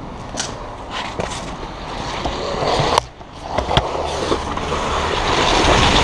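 Scuffing, scraping and knocking of boots and tactical gear against concrete walls as a player squeezes through a narrow passage, with a few sharp knocks and a louder one about three seconds in. A noisy hiss grows louder toward the end.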